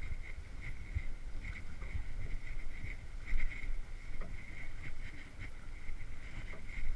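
Drift boat moving on a river: water rushing and slapping along the hull, with low, uneven wind rumble on the chest-mounted camera's microphone. A faint high-pitched chirring comes and goes over it.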